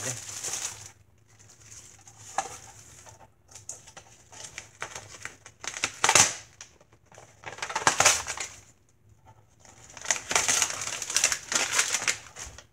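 Packaging being unwrapped and crinkled by hand, in a series of rustling bursts: the loudest about six and eight seconds in, and a longer stretch near the end.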